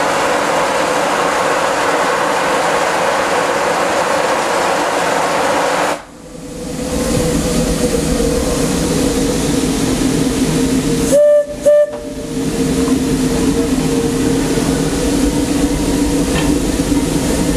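Standing Disneyland Railroad steam locomotive No. 1, the 4-4-0 "C.K. Holliday": a steady hiss of escaping steam cuts off suddenly about six seconds in, leaving a lower steady hum, and about five seconds later the steam whistle gives two short toots.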